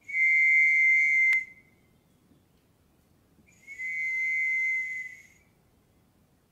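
Two long, steady high whistling tones, each about a second and a half, the first louder than the second; the second begins about three and a half seconds in. A sharp click comes near the end of the first tone.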